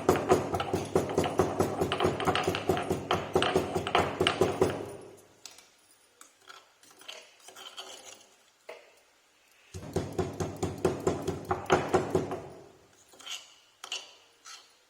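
A pestle pounding tulsi leaves, ginger, cloves and black peppercorns in a mortar with quick, rhythmic strikes. The pounding stops about five seconds in, leaving a few scattered taps. It resumes just before the ten-second mark, then gives way to a few lighter taps.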